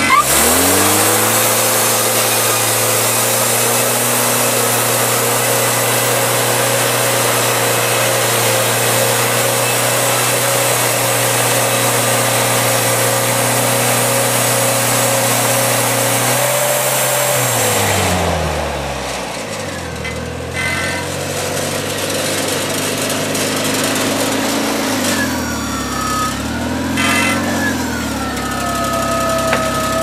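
Wood-Mizer portable band sawmill: its engine spins up to full speed and the band blade saws through a log with a steady hiss. About 17 seconds in, the engine slows back toward idle and the cutting noise stops; near the end a short whine rises and falls.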